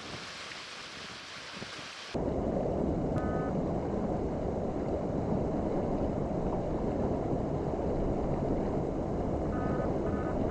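Wind buffeting the microphone, a loud low rumble that sets in abruptly about two seconds in, after a softer steady hiss of wind and water.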